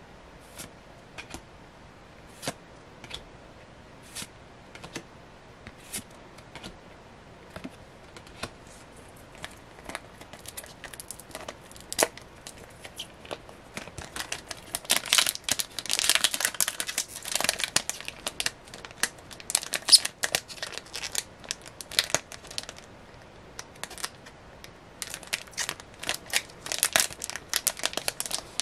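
Pokémon trading cards being handled one by one with sparse light clicks, then a foil booster pack crinkling and tearing as it is opened, loudest about halfway through and again near the end.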